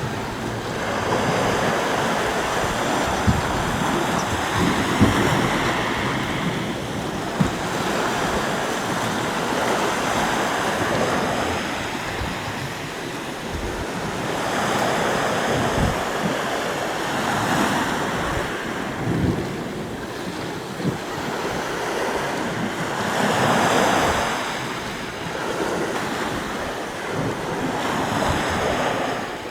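Sea waves breaking and washing ashore, the surf swelling and ebbing every few seconds, with wind buffeting the microphone in short low thumps.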